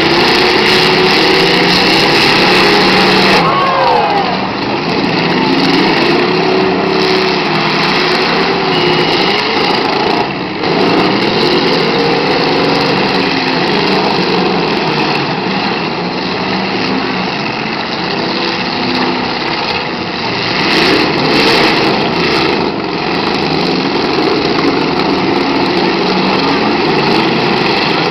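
Many demolition derby cars' engines running and revving at once, their pitches rising and falling over one another as the cars push and ram in the dirt. A couple of sharper knocks stand out a little past two-thirds through.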